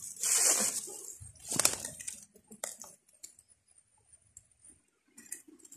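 Rustling of leaves and a plastic bag being handled, with a loud burst of rustling near the start and a few short sharp crackles after it.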